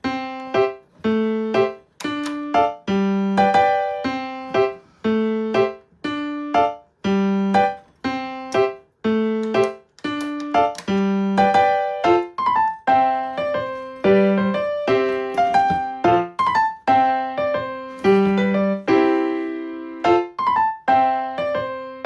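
Background piano music: a steady, regular pattern of struck notes and chords, each fading before the next.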